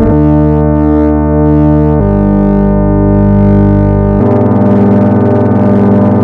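Computer-generated tones from a sum of sine waves of different frequencies and amplitudes, played as loud, steady, dissonant chords of many held pitches. The chord switches abruptly to a different set of pitches about every two seconds, three chords in all.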